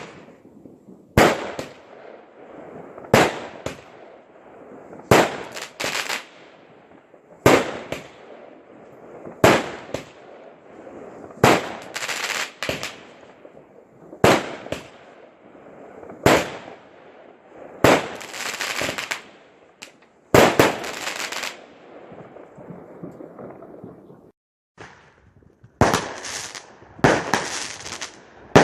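Consumer New Year fireworks going off shot after shot, a sharp bang about every two seconds, several trailed by a second or so of crackling. After a short lull near the end, the bangs come faster, with denser crackling.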